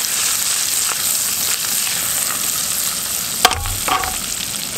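Fish pan-searing in garlic-basil butter and oil: a steady sizzle as the skillet is swirled over a camp gas stove. About three and a half seconds in comes a single sharp metal clack, with a brief ring, as the pan is set back down on the burner's grate.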